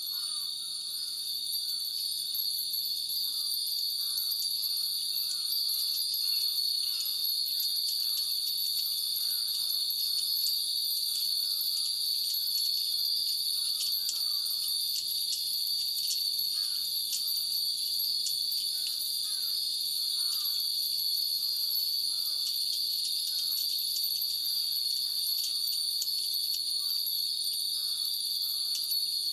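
Hundreds of Japanese fūrin wind chimes tinkling irregularly in the breeze over a loud, steady drone of summer cicadas.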